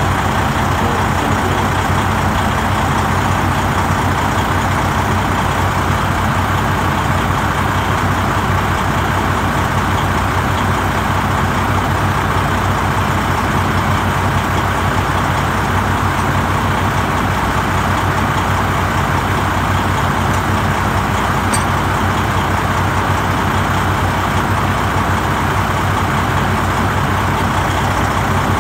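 A vehicle engine idling steadily with a low hum, unchanged throughout.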